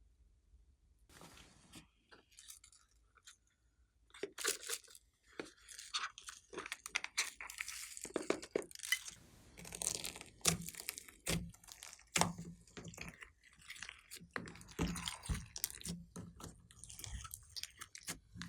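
Glossy slime being kneaded and squeezed by hand, giving irregular wet pops, clicks and crackles. It starts about four seconds in, after near silence.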